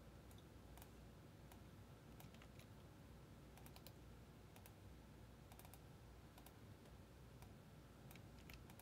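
Faint, scattered clicks of a computer keyboard and mouse, irregularly spaced, over a low steady room hum.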